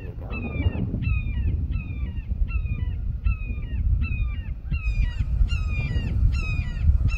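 A hawk calling over and over, a high downslurred squawk about one and a half times a second, getting louder near the end. Steady wind rumbles on the microphone underneath.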